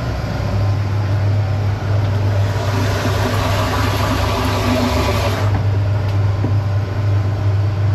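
Kärcher hot-water pressure washer running with a steady hum while its lance sprays hot water into a plastic barrel. The spray hiss grows louder from about two seconds in and drops back about five and a half seconds in.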